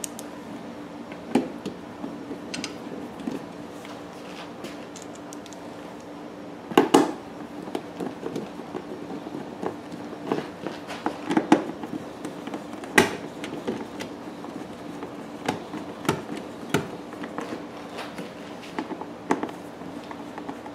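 Screwdriver work on a generator's plastic front panel: scattered clicks, taps and a few sharper knocks as the panel is refastened, over a steady low hum.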